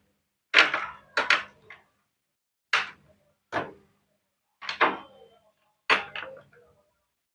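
Sharp clacks and knocks, about eight, spread unevenly with short silences between, as washing-machine parts are handled and pressed into place during reassembly.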